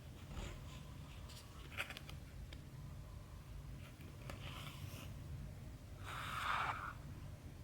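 Embroidery thread being pulled through cross stitch fabric by hand: a few soft scratchy swishes and faint clicks. The longest and loudest swish comes near the end. A low steady hum runs underneath.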